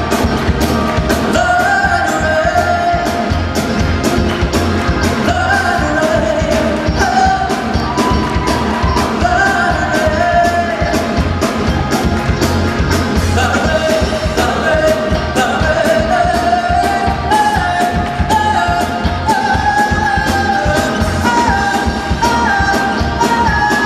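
Live pop band playing an up-tempo song with a singer's voice carrying the melody over a steady drum beat and bass.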